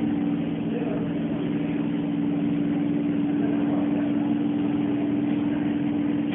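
Electric suburban train (EMU) standing at the platform, giving a loud steady drone of several low tones, which falls in pitch and dies away at the very end.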